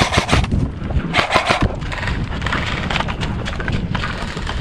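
Quick footsteps and rustling of a player moving over ground, with irregular knocks and rubbing from gear, close to a head-mounted camera microphone.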